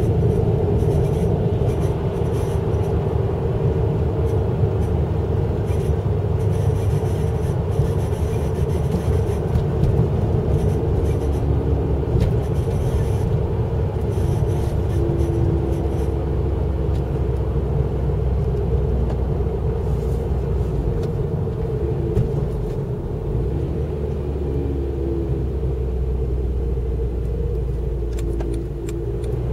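Honda Civic FD2 running, a steady low rumble with a constant hum over it; the car is being recorded for an abnormal noise whose nature is not identified.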